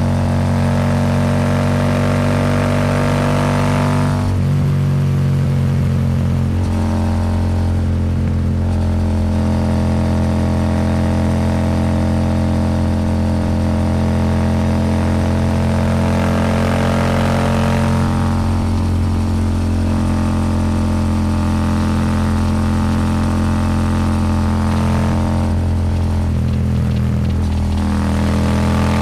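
Royal Enfield Super Meteor 650's parallel-twin engine running at a steady cruising speed through a Rhino Racing V2 slip-on exhaust. The throttle eases off briefly about four seconds in and again near the end. Wind noise rides along under the exhaust note.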